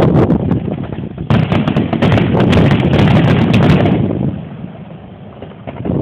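Fireworks going off: a loud spell of rapid crackling and bangs from about a second in, dying down after about four seconds, over heavy wind rumble on the phone's microphone.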